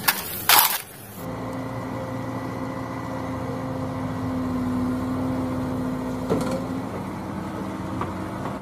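Two sharp plastic clacks from toy trucks being handled, then a wheeled excavator's engine running steadily as it digs, with a steady whine that drops away near the end. The sound cuts off sharply at the end.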